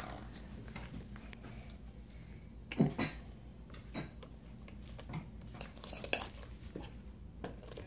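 A spoon knocking and scraping against a stainless steel mixing bowl as glue slime is stirred, with scattered clicks and knocks, the loudest a pair about three seconds in.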